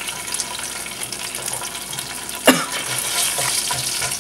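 Sichuan fava bean paste (doubanjiang) frying in hot oil in a pan, a steady sizzle, while a spatula and spoon stir it; the paste is being cooked until fragrant. One sudden sharp sound comes about halfway through.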